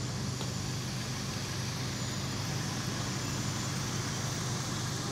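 Steady hum of road traffic, an even, unbroken rumble with no single vehicle standing out.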